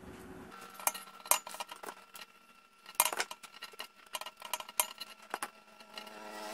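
Small plastic electrical parts (a two-pin plug, a power strip, a cord) being handled on a cardboard-covered bench: irregular sharp clicks and taps, the loudest about a second in and about three seconds in, over a faint steady hum.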